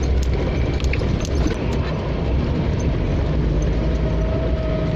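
Off-road 4x4 vehicle driving over a rough track: a steady low rumble of engine and tyres with scattered small knocks and rattles.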